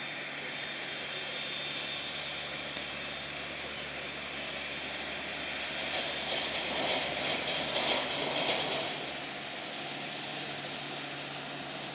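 Boeing 787 jet engines heard from a distance as the airliner taxis and turns onto the runway: a steady jet rush that swells louder for about three seconds near the middle.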